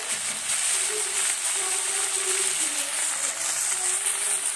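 Potato, pea and green-bean vegetable curry sizzling in a pan: a steady frying hiss.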